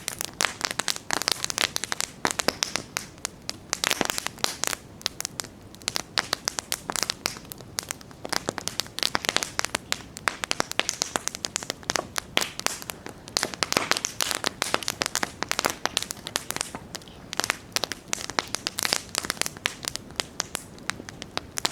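Wood campfire burning, with dense, irregular crackling and sharp pops over a soft hiss.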